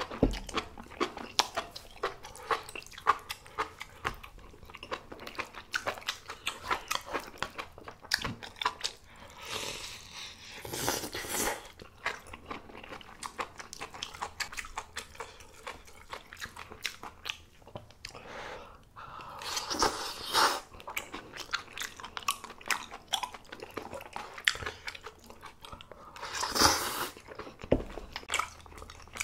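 A person eating a bowl of malatang: steady chewing and biting with many small wet mouth clicks. Three times, a longer, louder rush of noise lasting about a second cuts through.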